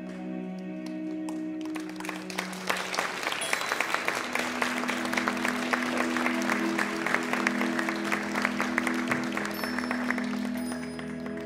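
Audience applauding, starting about two and a half seconds in and dying away near the end, over soft sustained music tones.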